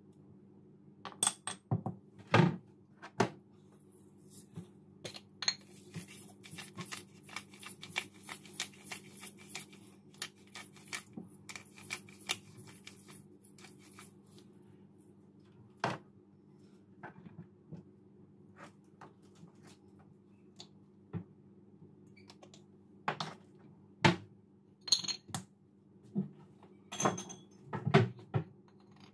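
Kitchen utensils clinking and knocking against a stainless steel bowl, with a pepper grinder turned over the bowl for several seconds in the middle: a rapid run of fine crackling clicks. A faint steady hum sits underneath, and a cluster of louder knocks comes near the end.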